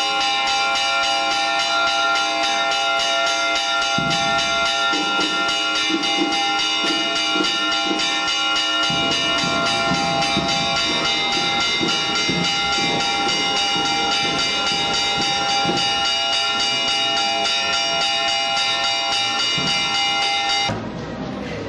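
Church bells ringing in a steady, continuous peal that cuts off suddenly near the end.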